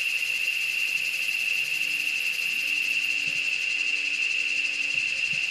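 Steady high-pitched insect chorus, a continuous shrill drone that does not let up.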